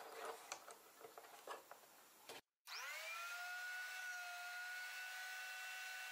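A few light clicks and knocks of a wooden workpiece being set and clamped in a homemade jig, then, after a short break, the jig's electric router motor spins up quickly and runs at a steady high whine.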